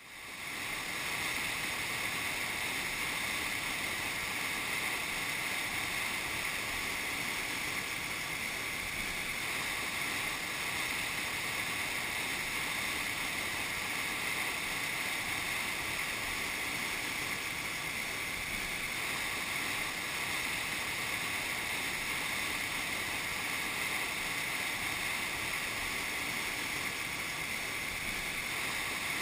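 River rapids pouring through a rocky chute: a steady rush of whitewater that fades in over the first second and then holds unchanged.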